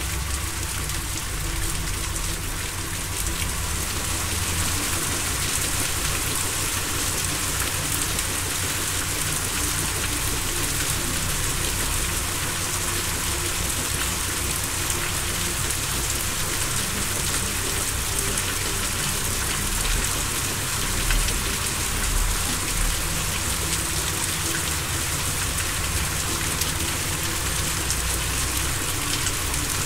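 Steady rain sound with a low, steady drone underneath, and a couple of brief low rumbles about two-thirds of the way through.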